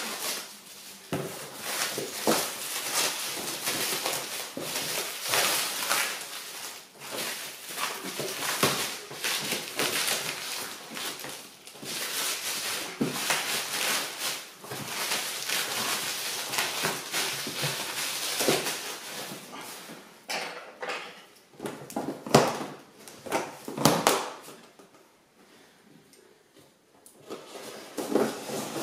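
Plastic stretch wrap crinkling and crackling as it is pulled and torn off cardboard boxes. A few louder knocks and bumps of the boxes come a little past two-thirds of the way through, then it goes nearly quiet briefly before the rustling starts again near the end.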